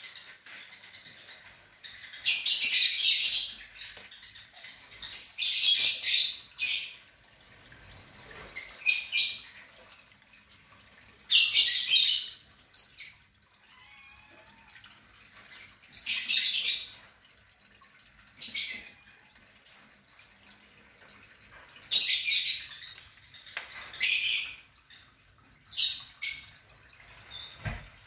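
A bird gives harsh, high squawking chirps about every two to three seconds. Each call lasts a second or so and is often followed by a shorter one.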